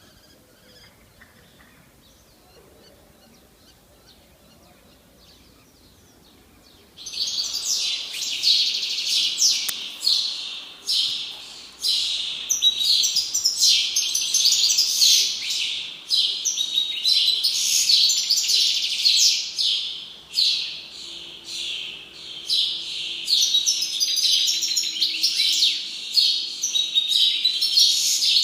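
Faint background for about seven seconds, then many small birds start chirping and twittering at once, a dense, rapid, overlapping chatter of high chirps that continues steadily.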